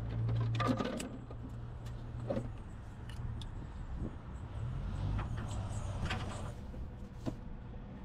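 Scattered clicks, knocks and rustles of tools and parts being handled, with a cluster in the first second and another about two-thirds of the way through, over a steady low hum.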